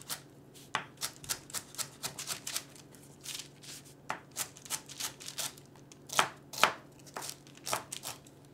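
Chef's knife chopping fresh celery on a paper-covered wooden cutting board: a run of uneven, sharp chops a few a second, with the two loudest chops about six seconds in.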